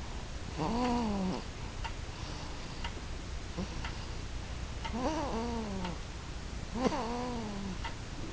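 A sleeping baby's snoring comes as three drawn-out pitched sounds: about a second in, around five seconds and around seven seconds. Each rises and then falls in pitch.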